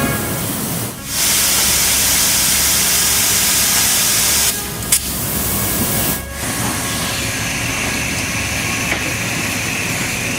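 A steady hissing noise, broken by short dips about a second in and around six seconds in, with a sharp click near the middle.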